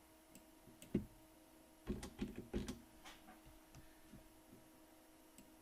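Computer mouse and keyboard clicks: one sharp click about a second in, then a quick run of clicks around two seconds in, over a faint steady hum.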